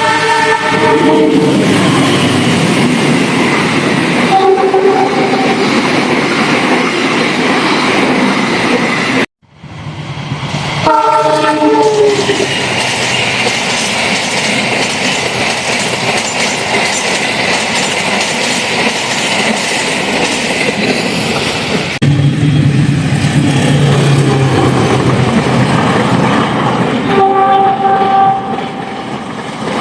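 Argo Parahyangan express train passing at speed, its wheels and rails making a loud, dense rumble with some clickety-clack. The locomotive horn sounds several times: at the start, briefly about four seconds in, once about eleven seconds in with its pitch dropping as the train goes by, and again near the end. The sound cuts off abruptly about nine seconds in and comes straight back.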